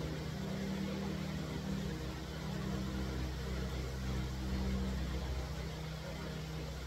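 Steady low hum with a faint, even room hiss.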